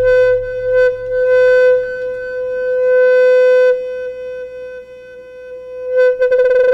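Make Noise modular synthesizer voice: a steady, held oscillator tone through a QMMG gate, swelling and fading in loudness as the Maths channels cycle the gate's rise and fall. Its pitch stays fixed while the loudness ebbs and flows, and about six seconds in it breaks into a fast fluttering pulse.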